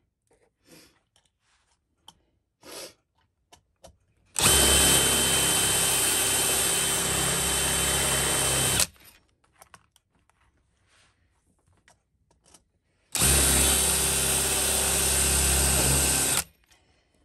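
Cordless drill with a 3/16-inch bit running in two steady bursts, about four and a half seconds and then about three seconds long. It is drilling out the rivets that hold a Filofax's metal ring mechanism. Small handling clicks come before and between the bursts.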